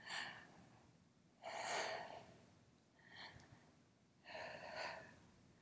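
A woman taking deep, slow breaths in and out, four breath sounds a second or so apart, each a soft rush of air.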